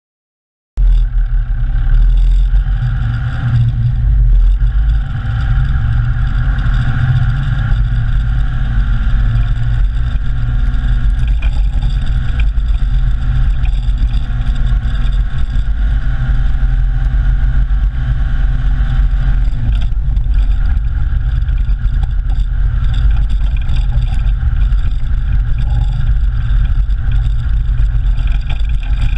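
Four-wheel drive on the move over a dirt track, heard from a camera mounted under the vehicle beside the front wheel: a loud, steady low rumble of tyre, suspension and drivetrain, starting about a second in.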